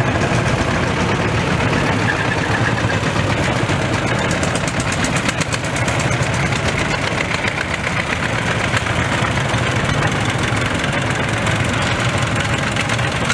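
Engines of vintage tractors, small orange Vendeuvre tractors and a Someca 415, running steadily at low speed as they drive past one after another, with a rapid, even firing beat.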